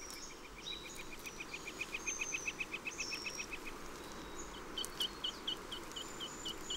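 Forest birdsong: a rapid trill of repeated high notes that grows louder and then stops about three and a half seconds in, with higher whistled notes over it. From about four and a half seconds in, a slower series of notes follows at about five a second, over a faint steady hiss.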